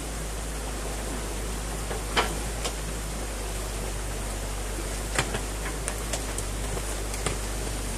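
Water rushing through a breach in a beaver dam, a steady churning rush. Sharp cracks and knocks about two seconds in and several more between about five and seven seconds as the excavator bucket digs into the dam's sticks and branches.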